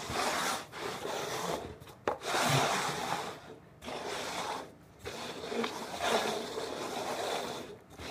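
Paper cups being slid and shuffled by hand across a ribbed floor mat: a run of rubbing, scraping sweeps, each about a second long with short pauses between, and a light click about two seconds in.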